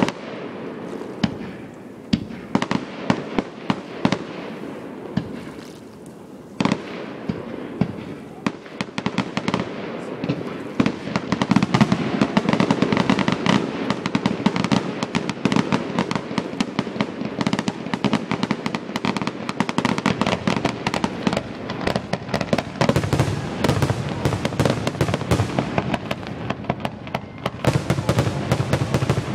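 Aerial fireworks exploding. Scattered bangs come at first, then a dense, louder run of rapid bangs and crackling from about ten seconds in.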